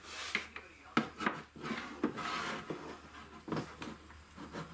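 Light knocks, clicks and scraping as a part is handled and held against the wall to find its mounting spot.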